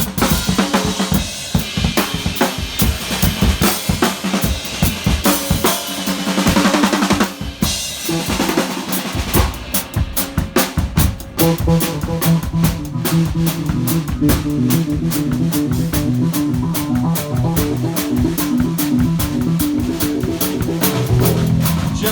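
Two drum kits played live in a drum battle: fast snare, bass drum and rimshot hits with crashing cymbals. About halfway through, a repeating electric bass line comes in under the drums.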